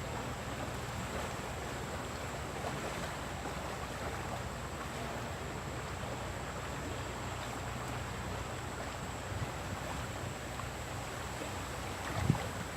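Fast river current rushing steadily, with a single short thump near the end.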